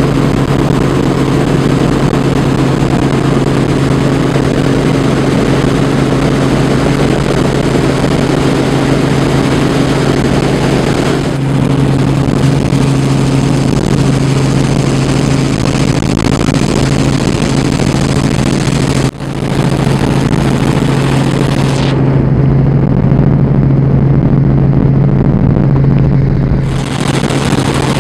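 Helicopter cabin noise in flight: a steady low drone from the rotor and engine under a loud rushing noise. The sound dips briefly about two-thirds of the way through.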